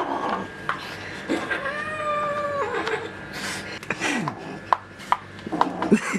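A cat meowing: one long, drawn-out meow held at a steady pitch about two seconds in, then a few shorter meows that fall in pitch, among scattered clicks and knocks.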